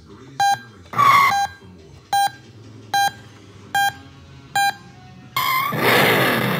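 Short electronic beeps, about one every 0.8 seconds. Near the end a loud recorded engine sound effect from the speaker-modded toy Dodge Ram truck starts up, played through an external speaker.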